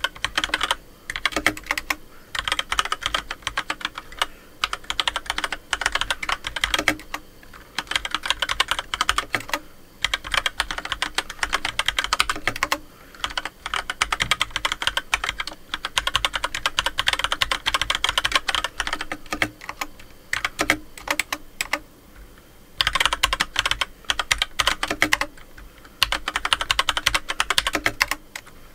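FILCO Majestouch2 mechanical keyboard fitted with Gateron White linear switches (35 g actuation) being typed on in fast runs of keystrokes with short pauses between them. The strokes are light at first and harder later on. The clacking is like that of red switches but nearly twice as loud.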